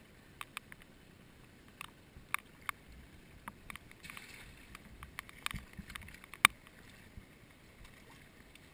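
A cast net thrown onto shallow floodwater, landing with a brief splashing hiss about four seconds in. Scattered sharp ticks and knocks run through it, the loudest a little after six seconds.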